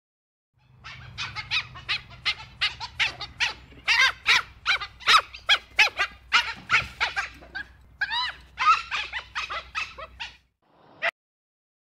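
Dhole (Asiatic wild dog) calling: a quick, dense run of short, high, squeaky calls, each rising and falling in pitch, starting about a second in and stopping shortly before the end, then one more short call. A low steady hum sits under the calls.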